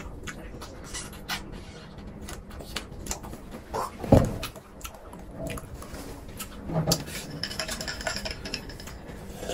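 Close-miked eating sounds: a small fruit jelly being sucked and chewed, with many small wet mouth clicks and one louder low thud about four seconds in.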